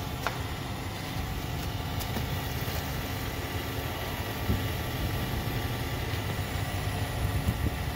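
A steady low mechanical rumble like a running motor, with a few faint clicks.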